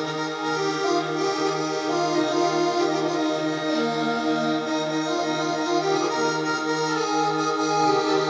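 Korg Pa80 arranger keyboard playing a melody over a steady, evenly pulsing low bass note.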